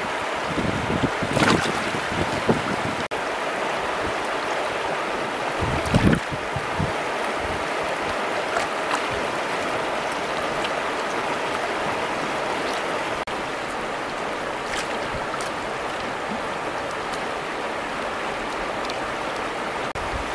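Shallow river running over stones, a steady rushing, with a few splashes and swishes of hands rinsing something in the water, the loudest about six seconds in.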